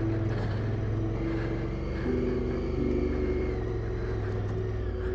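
Honda Africa Twin CRF1000L's parallel-twin engine running at low, fairly steady revs while riding a dirt trail. The note shifts with the throttle about two seconds in.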